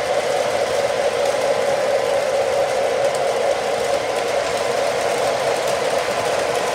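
O-scale model trains running on three-rail track: a steady, unbroken whir of their motors and wheels rolling along the rails.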